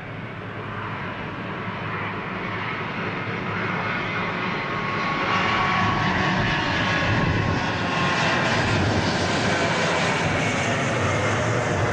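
A Boeing 777 airliner's twin jet engines on landing approach, growing steadily louder over the first half as the plane nears, then holding loud.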